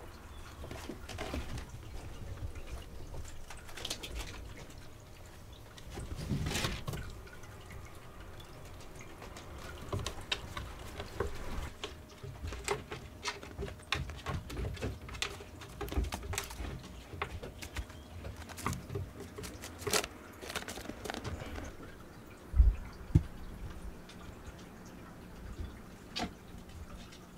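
Light scattered taps and clicks of cats' paws and claws moving on wooden shelves and floor, with one heavy thump a little past two-thirds of the way through.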